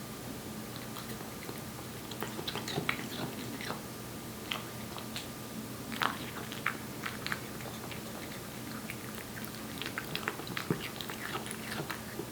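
Korean shorthair cat eating wet cat food: irregular wet chewing smacks and clicks, a few louder ones now and then.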